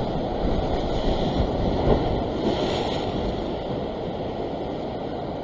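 Sea surf breaking and washing over a rocky ledge, with wind rumbling on the microphone. It is a steady rush of water, surging slightly louder about two seconds in.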